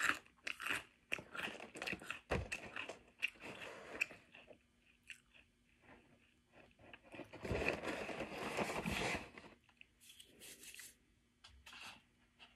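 Crisp, sweetened corn cereal pieces (French Toast Crunch) eaten dry by the handful and chewed close to the microphone: a run of sharp crunches that thins out, then a louder, denser stretch of crunching past the middle and a few last crunches near the end.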